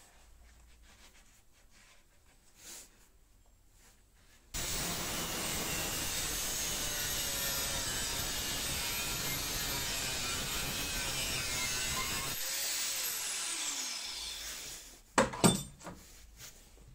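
Angle grinder with an abrasive disc cutting the profile of an HSS saw-blade knife blank, starting abruptly about four seconds in and running steadily for about eight seconds. It is then switched off and spins down with a falling whine, followed near the end by two sharp metallic clinks.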